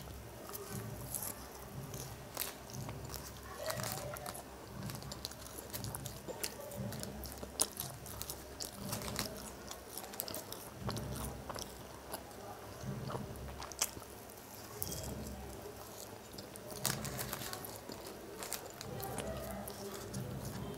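A person chewing mouthfuls of french fries, close to the microphone, in a steady rhythm with soft crunches and small mouth clicks.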